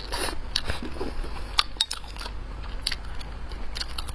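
Close-miked eating sounds: biting and chewing food, with a series of sharp, crackly clicks scattered through.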